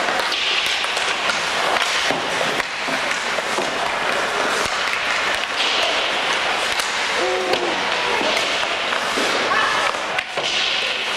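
Ice hockey play on a rink: skates scraping the ice, with sharp clacks and knocks of sticks and puck against each other and the boards. Players call out briefly a couple of times.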